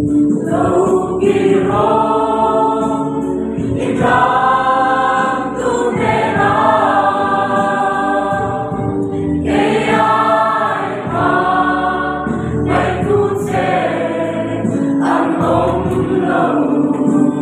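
A crowd of people singing a worship song together, the voices blending as a group on long held notes.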